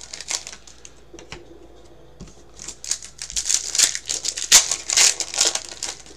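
Foil wrapper of a trading-card pack crinkling as it is handled and torn open. A few crinkles in the first second, then a dense, loud run of crinkling from about two and a half seconds in until just before the end.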